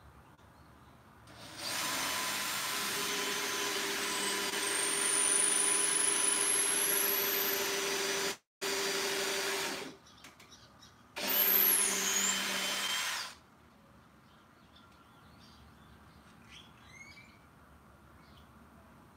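Cordless drill driving screws into a plywood platform, running in two goes: a long run of about eight seconds, then a shorter run of about two seconds.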